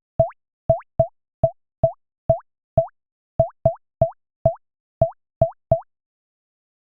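Synthesized water-drop plops from a Bitwig Poly Grid patch, triggered about fourteen times at an uneven pace of roughly two a second: each a short blip whose pitch sweeps quickly upward, with a low thump beneath. They stop about a second before the end.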